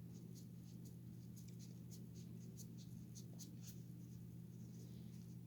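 Faint, irregular scratchy strokes of scrubbing and rubbing on a small toy figure during cleaning, over a steady low hum.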